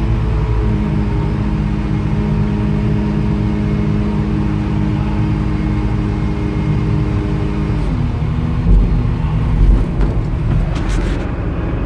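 Heavy-equipment diesel engine running at a steady speed; its pitch drops about eight seconds in, and a few low thumps follow.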